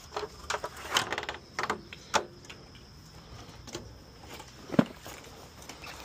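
Step stool clanking as it is handled and set in place: a handful of sharp clicks and knocks, with a quick rattle of clicks about a second in and a louder thump near five seconds in.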